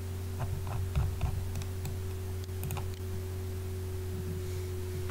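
A scattered run of light clicks from working a computer, several within the first three seconds, over a steady low electrical hum.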